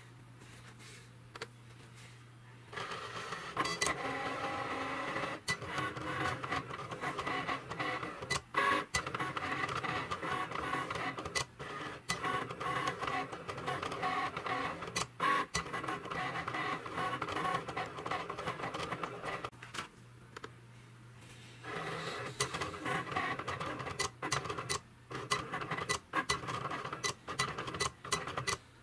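Cricut vinyl cutting machine cutting vinyl on its mat: the carriage motors whir in short starts and stops with many small clicks, sped up to double speed. The whirring begins a few seconds in and breaks off for about two seconds near twenty seconds in before starting again.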